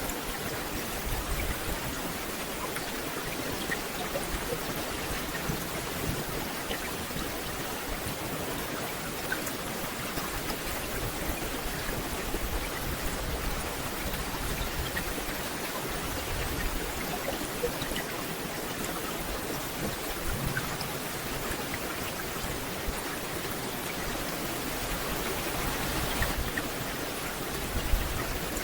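Steady rain falling on a forest canopy, a dense even hiss with scattered individual drop ticks and a few soft low thuds.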